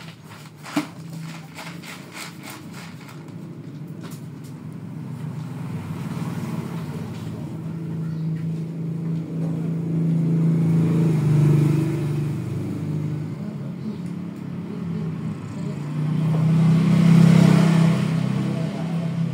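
A motor vehicle's engine running with a steady low hum, growing louder and fading twice, loudest near the end as if passing close by.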